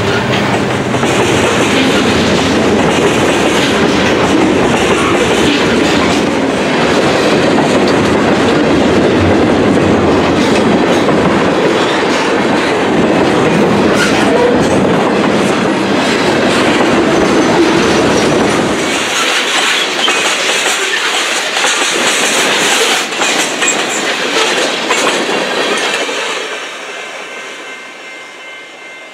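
Freight train cars rolling past, steel wheels clicking over rail joints. The sound thins out about two-thirds of the way through and fades near the end as the tail of the train moves away.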